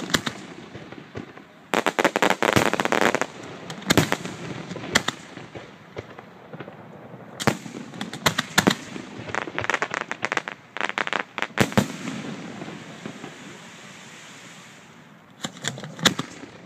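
Aerial fireworks shells bursting in the sky: a run of sharp bangs with stretches of dense, rapid crackling, notably about two seconds in and again around ten seconds. It eases off for a couple of seconds, then a few more bangs come near the end.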